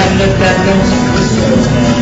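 Instrumental background music, loud and steady.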